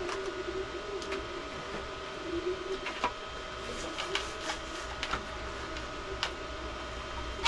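Hard 3D-printed plastic forearm armor clicking and knocking in scattered sharp taps as the pieces are handled and slid on over foam padding. Under the taps runs a steady mechanical hum with a wavering pitched tone.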